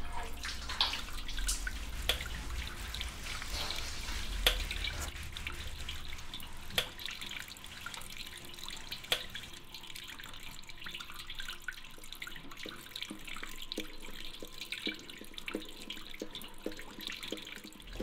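Water running from a tap into a bathroom washbasin, with scattered small clicks and knocks of things handled at the basin.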